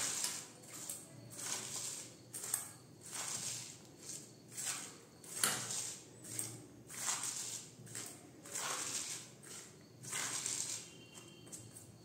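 Shredded raw cabbage being rubbed with salt by hand in a stainless steel bowl: a rustling crunch about once a second as the hand squeezes and tosses it. The rustling stops near the end.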